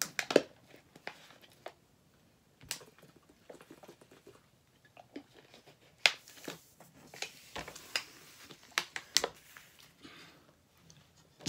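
Plastic water bottle crinkling and clicking as it is handled and drunk from, in scattered sharp crackles with quiet gaps between.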